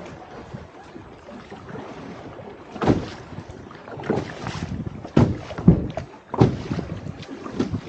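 Wooden canoe being paddled through the water: water splashing and sloshing in uneven bursts, starting about three seconds in, with wind on the microphone.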